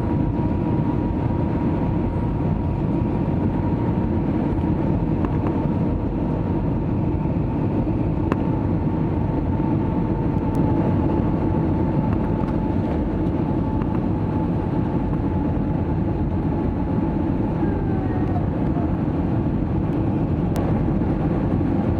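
Steady engine and airflow noise inside the cabin of an Airbus A320 airliner in flight, an even low rumble with a faint steady tone above it.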